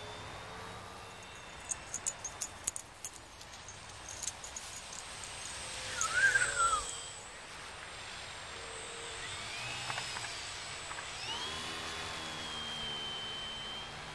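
Electric motor and propeller of a GWS Slow Stick RC park-flyer whining in flight, loudest around six seconds in as it passes low over the grass, then a whine that rises in pitch and holds steady as it climbs near the end. A quick run of sharp clicks sounds about two seconds in.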